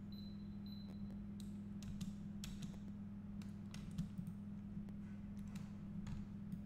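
Scattered computer mouse and keyboard clicks, one a little louder about four seconds in, over a steady low electrical hum. A faint high tone is heard in the first second or so.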